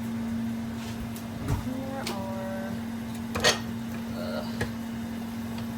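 Steady hum of a kitchen appliance, with a few light clicks and knocks of kitchenware and a brief pitched tone about two seconds in.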